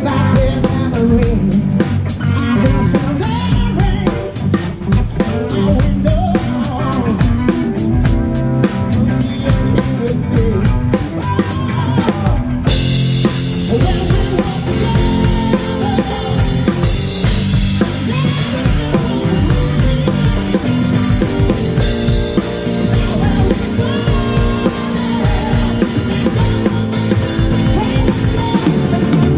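Live band music heard from right at a drum kit, with the drums loudest: a steady beat of quick, evenly spaced stick strokes over bass and guitar. About twelve seconds in, a bright cymbal wash sets in suddenly and keeps ringing over the beat.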